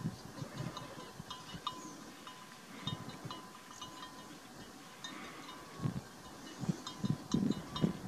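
Faint outdoor wetland ambience: scattered high, chime-like chirps of distant birds and a thin steady whistle, with a few low rumbles from about six seconds in.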